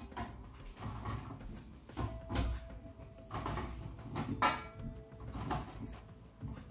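Light knocks and clatters of stainless steel baking dishes being handled on a wooden worktop as filled cannelloni are laid in them, sharpest about two and four and a half seconds in.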